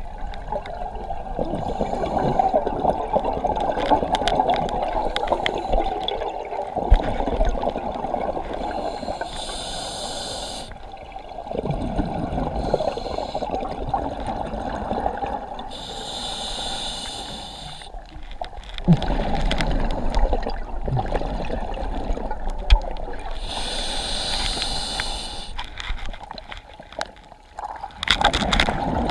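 Scuba breathing through a regulator underwater: three hissing inhales about seven seconds apart, with bubbling exhales in between.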